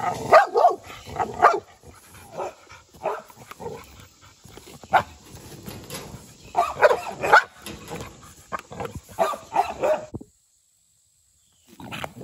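American Bully dog barking hard and repeatedly in short barks at a person holding out a gloved hand: a young dog starting to show guarding aggression. The barking cuts off suddenly about ten seconds in.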